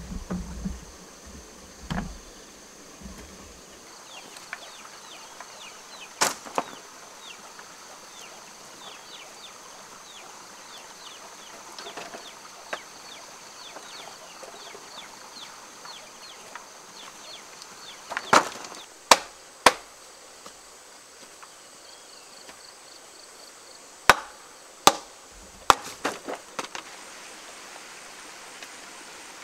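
Old wooden planks being handled and dropped onto a pile: scattered sharp wooden knocks and clatters, a few on their own and clusters of several about two-thirds of the way in and near the end. A faint steady high-pitched hum runs underneath.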